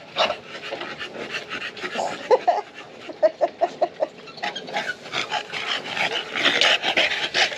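Bulldog-type dogs panting in quick, rapid breaths, heavier toward the end.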